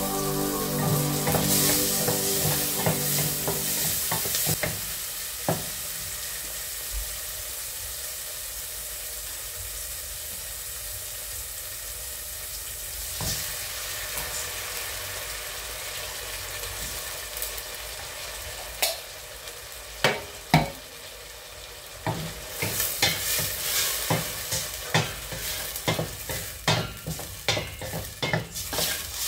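Food sizzling in a stainless-steel pot on a gas burner. About halfway through, canned sardines are tipped in. In the last several seconds a wooden spoon stirs the pot and knocks against it repeatedly.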